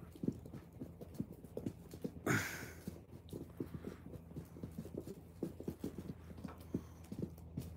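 Soft, irregular thumps and taps on carpet as kittens play with a swung yarn wand toy, with one short sound sliding down in pitch about two seconds in.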